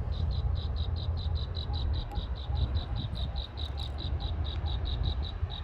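An insect chirping in a fast, even pulse of short high notes, about five a second, that stops just before the end, over a steady low rumble.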